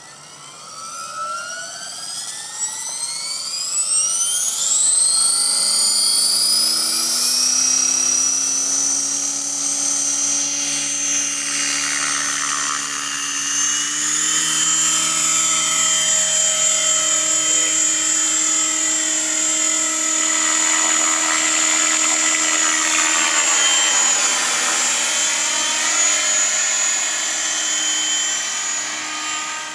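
Align T-Rex 550E electric RC helicopter spooling up: the high whine of its motor and drivetrain climbs steeply in pitch over the first five seconds or so, then holds steady at flying head speed over the rotor blades' rush of air. Later on the pitch dips and rises again as it flies.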